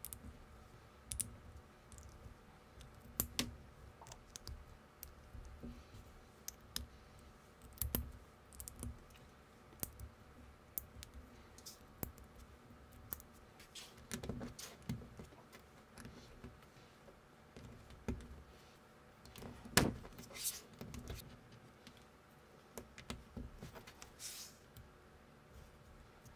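Plastic building bricks clicking and snapping together as fingers press and fit small pieces, in irregular sharp clicks, with one louder snap about twenty seconds in.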